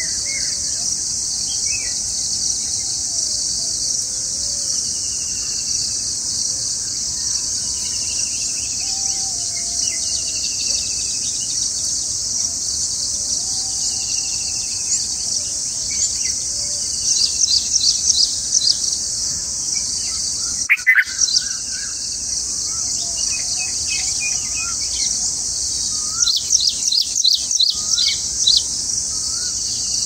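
Bulbul nestlings chirping rapidly as they beg in two bouts, over a steady high drone of insects. Fainter birds call in the background, and there is one sharp knock about two-thirds of the way through.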